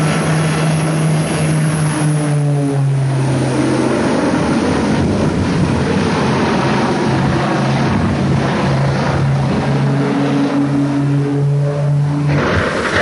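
Twin-engine propeller airplane droning steadily in low flight, the engine note fading and returning. Near the end the drone cuts off abruptly and a rush of noise takes over as the plane hits the ground.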